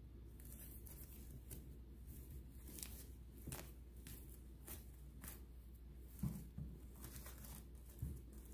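Feathers being dry-plucked by hand from a mallard, pinched and pulled near the top of the wing: faint short rustling rips, about one or two a second, over a steady low hum. A soft bump comes about six seconds in and another near the end.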